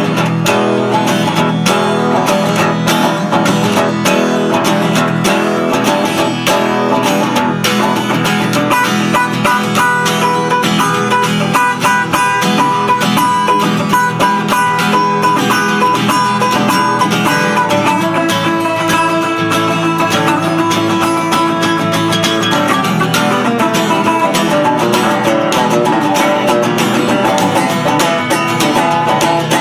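Acoustic guitar strumming steadily through an instrumental break in a live folk-country song, with no singing.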